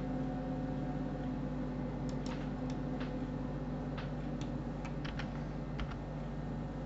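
Computer keyboard keys and mouse buttons clicking: about ten scattered, irregular clicks starting about two seconds in, over a steady low hum.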